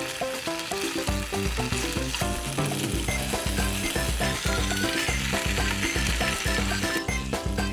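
Food sizzling as it cooks, a steady hiss that grows stronger from about two seconds in, under background music with a plucked melody and bass.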